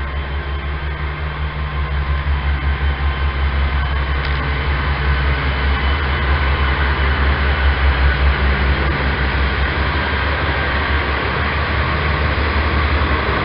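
Class 143 Pacer diesel multiple unit pulling away, its underfloor diesel engines running under power with a deep, pulsing drone that builds over the first several seconds and then holds steady.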